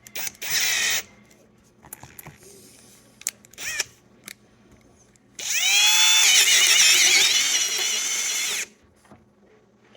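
Electric drill boring into the lock cylinder of a 1969 ignition switch: a short burst less than a second in, then a run of about three seconds starting past halfway, its whine rising as the motor spins up and then wavering as the bit bites into the tumbler.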